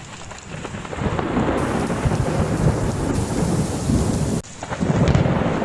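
Strong blizzard wind blowing hard and buffeting the microphone, a gusting, rumbling rush of noise. It breaks off sharply about four seconds in, then picks straight up again.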